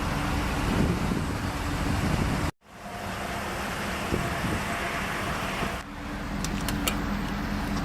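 Steady vehicle and traffic noise with a low engine hum, cutting out briefly about two and a half seconds in, with a few light clicks near the end.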